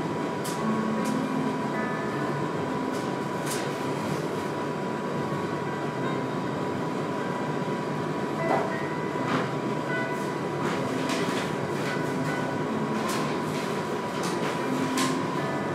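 Steady rushing background noise with a faint constant high tone and a few soft clicks.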